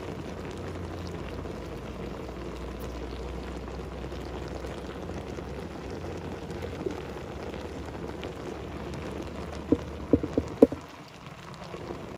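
Pot of snails steaming over boiling water, a steady bubbling hiss with a low hum beneath. About ten seconds in, a quick run of four sharp knocks.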